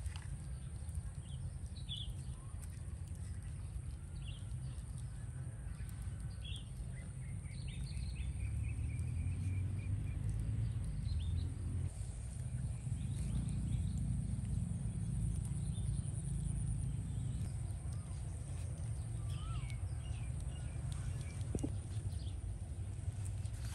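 Outdoor ambience: scattered short bird chirps and a brief rising whistle over a steady low rumble and a constant high-pitched hiss. The rumble grows louder about a third of the way in.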